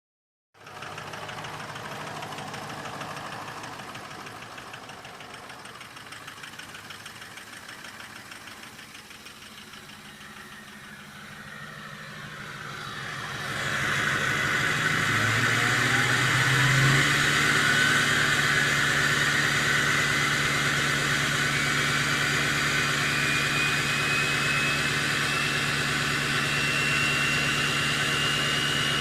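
Ford 6.0 Powerstroke V8 turbo-diesel idling, then stepping up to high idle about halfway through. From then on a turbo whistle rises slowly and steadily in pitch.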